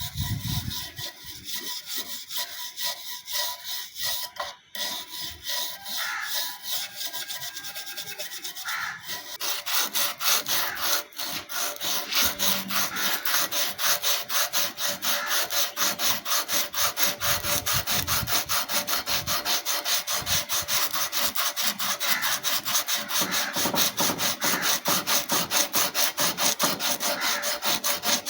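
Rust being scraped off a steel knife blade by hand, in back-and-forth abrasive strokes. The strokes are uneven and sparse at first. From about nine seconds in they become fast and steady.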